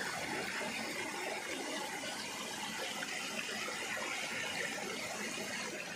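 Spring water running steadily over rocks, stirred by a hand clearing leaves from the spring's intake.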